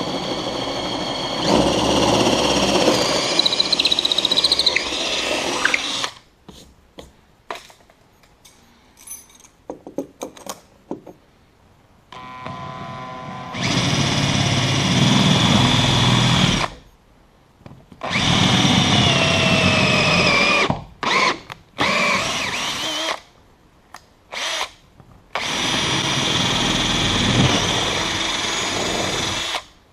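Cordless drill with a half-inch bit boring out old holes in a fibreglass boat hull, run in about five bursts of a few seconds each with short pauses and small clicks between. The motor's pitch sags at times as the bit bites into the laminate.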